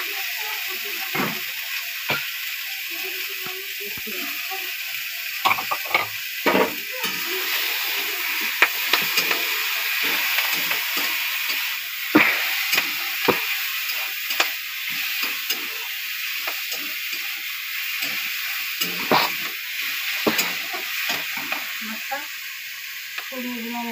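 Greens and potato pieces sizzling in hot oil in a metal karai (wok), with a spatula scraping and knocking against the pan as they are stirred, giving many short irregular clicks over the steady frying hiss.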